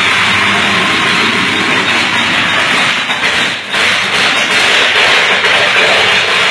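Loud, steady hissing roar of an electrical short circuit arcing at the railway tracks, dipping briefly about three and a half seconds in.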